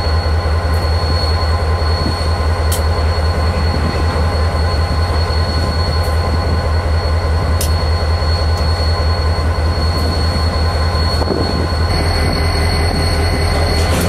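Union Pacific diesel locomotive running close by: a steady, loud low engine rumble with a constant high thin whine above it, and two sharp clicks, about three and eight seconds in.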